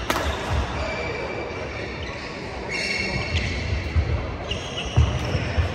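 A single sharp hit of a badminton racket on the shuttlecock at the very start, then footsteps thudding on the wooden court floor and short squeaks of court shoes as the players move about.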